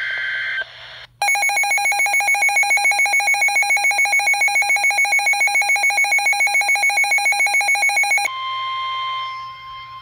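The end of a NOAA Weather Radio SAME data burst, then a Midland weather radio's built-in alert beeper sounding a fast, shrill pulsing beep for about seven seconds as it raises a Special Marine Warning alert. Near the end this gives way to the steady 1050 Hz NOAA warning alarm tone.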